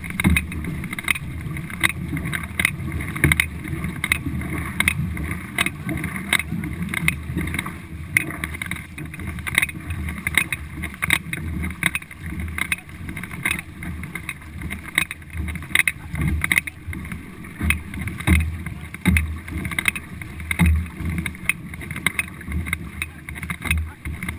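Four-paddler racing canoe under way: the crew's paddle strokes come as short, sharp knocks at an even beat of a little more than one a second, over a steady low rush of water along the hull.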